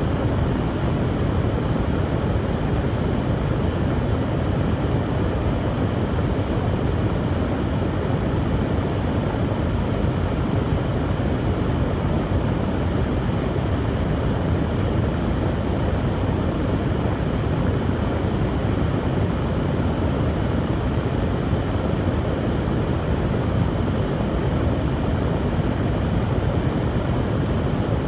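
Hair dryer running steadily: a constant blowing rush with a deep low hum beneath it.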